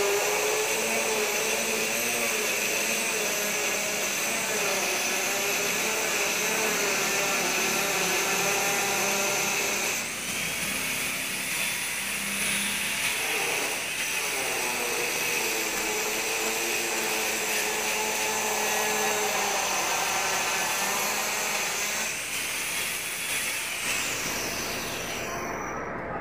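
Handheld electric power tool running on a wooden board, its motor whine steady with pitch dipping and rising as it is worked; it is switched off just before the end.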